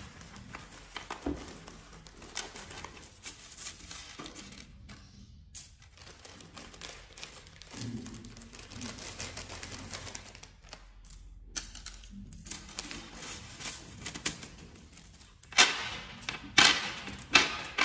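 Thin bamboo skewers clicking and clattering against a wooden tabletop as they are handled, spread out and gathered, with some crinkling of their plastic wrapper. Near the end come sharper taps as the bundle is knocked upright on the table.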